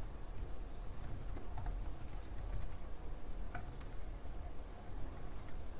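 Computer keyboard being typed on: irregular single keystrokes clicking while a shell command is entered.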